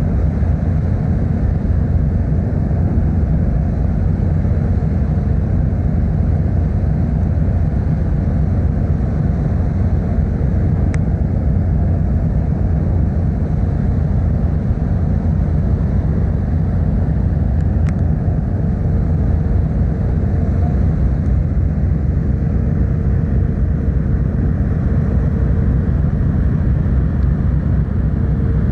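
Car ferry under way, its engines giving a steady low rumble with a faint constant hum above it.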